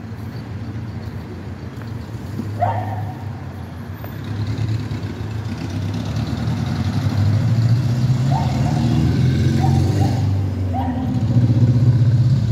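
City street traffic: car and taxi engines and tyres running along the avenue, the rumble swelling over the second half as vehicles drive past. A dog barks a few short times.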